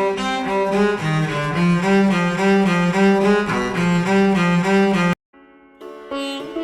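Solo bowed string instrument, viola or cello, playing a quick run of repeated notes that cuts off abruptly about five seconds in. After a short silence, a different instrument starts with sharper, plucked-sounding notes near the end.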